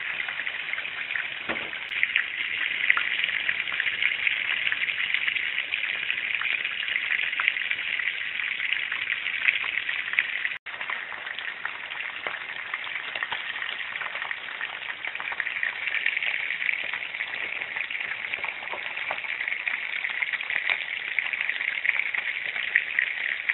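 A whole fish frying in hot oil in a frying pan: a steady, dense sizzle with constant small pops and crackles of spitting oil, briefly cut off about ten seconds in.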